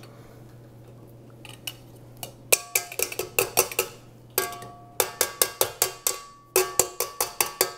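Metal microplane grater striking the rim of a stainless steel stand-mixer bowl in three quick runs of strokes, about five a second, the bowl ringing with each hit, knocking grated garlic into the bowl.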